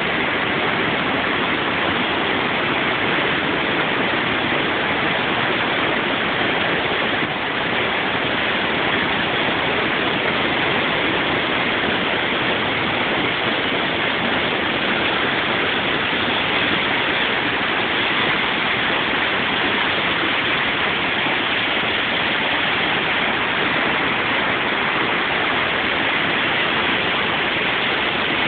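Creek waterfall in flood: a steady, loud rush of floodwater pouring over the falls and churning through the rapids below.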